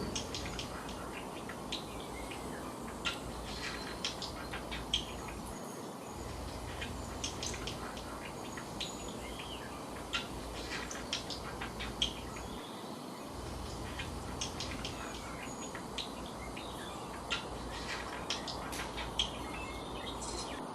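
Birds chirping: many short, high chirps and tweets at irregular intervals over a steady background hiss.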